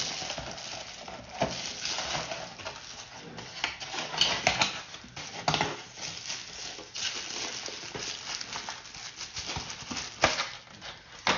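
Thin plastic wrapping rustling and crinkling as it is pulled off a monitor light bar in its cardboard box, with a few sharper crackles and handling knocks along the way.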